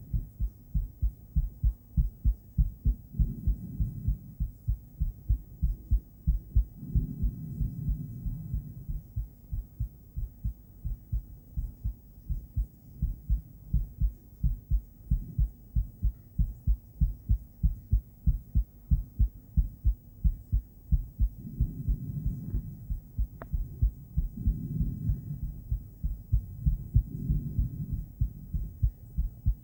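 A woman's heartbeat picked up by a handheld ultrasonic Doppler device: a steady, rapid train of low pulses, with a low whooshing that swells and fades several times. There is a small click about 23 seconds in.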